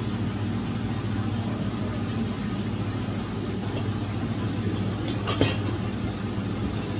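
Steady low hum, with one sharp metal clink about five seconds in: a metal spatula knocking against an iron tawa while roti is turned over a gas burner.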